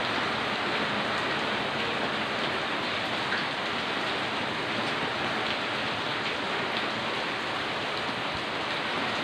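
Monsoon rain falling steadily: an even hiss of rain with a few faint scattered drop ticks.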